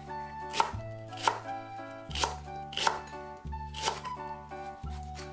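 Kitchen knife chopping food on a cutting board: about five sharp strokes at uneven spacing, over soft background music.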